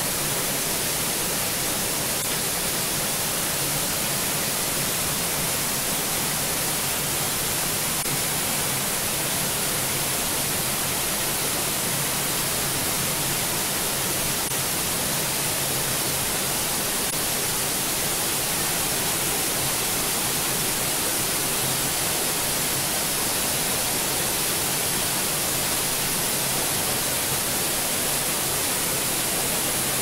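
Waterfall pouring into a pool, heard from close behind the falling water under a rock overhang: a steady, unbroken rush.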